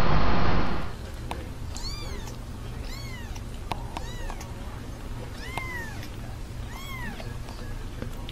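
A kitten mewing five times, high-pitched mews that rise and fall, about a second apart, with a few faint clicks between them. A loud steady rushing noise cuts off within the first second.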